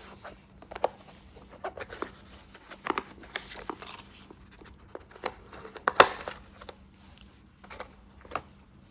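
Handling of small Swiss Army knives: scattered clicks, taps and rustling, with one sharper click about six seconds in.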